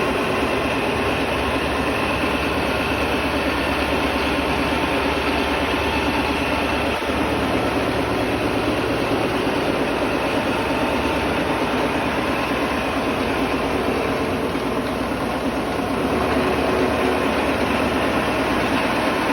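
CNC milling machine rough-milling a mold cavity plate, the cutter running through the cut with a steady, unbroken machining noise.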